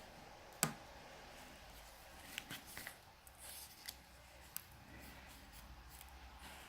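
Small clicks and light scraping as a small pin pries at a part inside an opened Samsung Galaxy S4 phone, with one sharper click under a second in.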